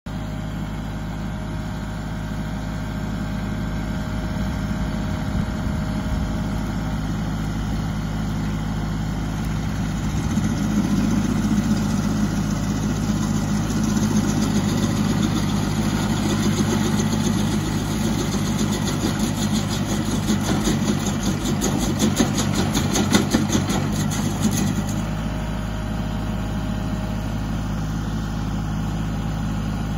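A John Deere compact tractor's diesel engine runs steadily, driving a three-point-hitch PTO stump grinder. From about ten seconds in the engine works harder and the spinning cutter chatters rapidly against the stump, easing back to a steady run about twenty-five seconds in.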